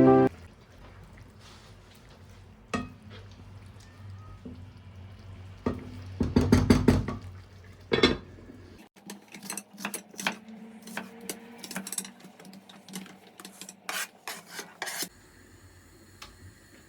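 Dishes and cutlery clinking and knocking, utensils striking plates and pots, with a louder cluster of clatter about six to seven seconds in and a run of quick light clicks in the second half.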